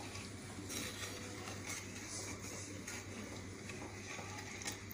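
Faint, irregular scraping and sloshing of a plastic spatula stirring thin, watery tomato gravy in a nonstick pan, over a steady low hum.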